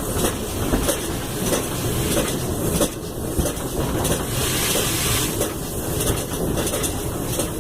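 GWR 94xx 0-6-0 pannier tank steam locomotive 9466 running, heard from its footplate: a steady rumble with irregular knocking and clatter, and a hiss of steam about four to five seconds in.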